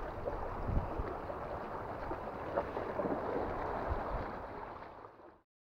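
Wind buffeting the microphone over sea water washing against shore rocks, fading out to silence about five seconds in.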